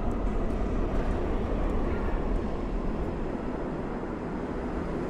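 Steady low rumble of vehicle traffic, easing off slightly partway through.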